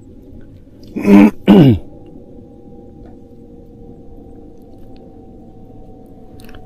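A man clearing his throat twice in quick succession about a second in, the second with a falling pitch, over a steady faint hum.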